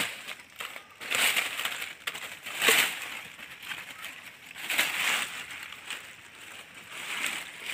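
Rustling and crunching of leaves and vines as pumpkins are pulled and gathered from the field, in three louder bursts.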